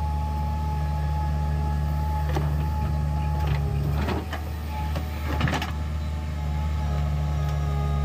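JCB 3DX backhoe loader's diesel engine running steadily under load with a high hydraulic whine, and a cluster of clattering knocks from about four to five and a half seconds in as the bucket dumps soil and clods into the dumper's steel body.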